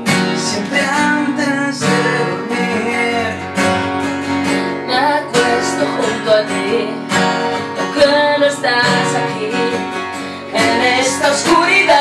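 Acoustic guitars strumming chords in a steady rhythm, an instrumental passage of a song played live.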